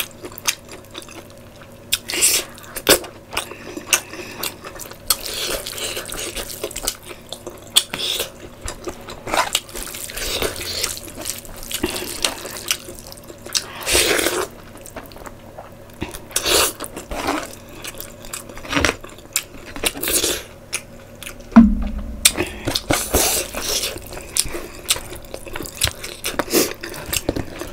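Close-miked wet eating sounds: a hand squishing rice and curry together, with irregular lip smacks and chewing clicks. There is one heavier thump about three-quarters of the way in.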